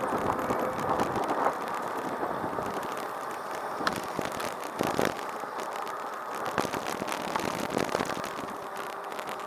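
Steady road and tyre noise with frequent small rattles and clicks as a small open vehicle rolls along city pavement, picked up by a camera mounted on its handlebars.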